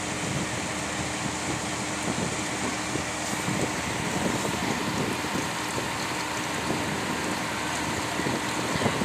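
Canal boat's engine running steadily, with water and wind rushing past the boat.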